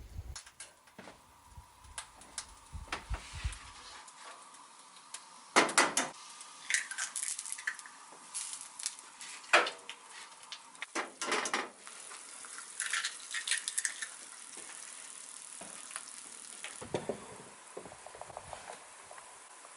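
Irregular clicks, knocks and clatters of small hard objects being handled, with bursts of quick clinking in the middle and a few dull thumps near the end.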